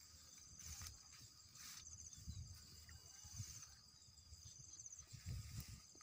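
Faint insects trilling in a pulsing high chirr, with soft rustles of grass and dull low thuds of steps underneath.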